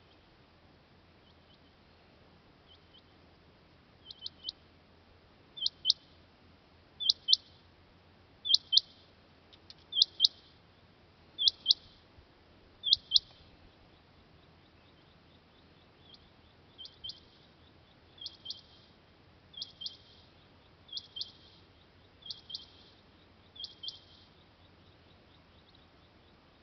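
Male rain quail calling: sharp, high double notes, about one pair every one and a half seconds, starting faint and growing loud. After a short pause about halfway through, a second, somewhat quieter run of the same double notes.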